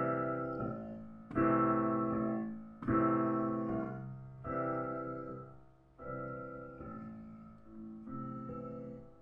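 Background music: slow piano chords, a new chord struck every second or two and each left to ring and fade.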